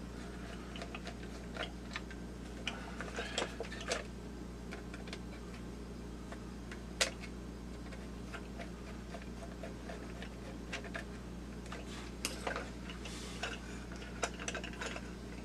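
Scattered light clicks and taps of a plastic holiday-village ornament's housing and a screwdriver being handled during disassembly, with one sharper click about seven seconds in, over a steady low hum.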